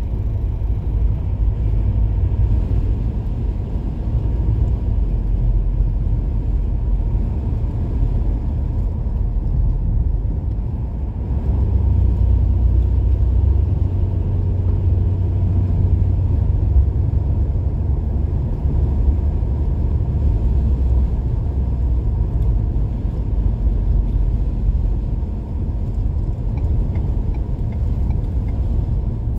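Steady low road rumble heard inside a moving car's cabin as it drives on a snow-covered highway, the tyre and engine noise growing a little louder about halfway through.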